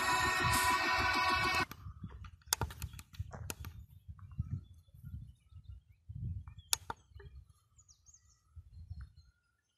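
Digital radio receiver audio during a band scan: a station's music plays loudly and cuts off abruptly about two seconds in. After that come a faint low rumble and scattered sharp clicks.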